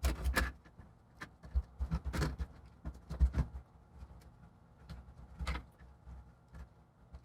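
Irregular small clicks and knocks of plastic parts being handled, as laptop speakers are fitted into the laptop's plastic bottom case, with a few louder knocks among them.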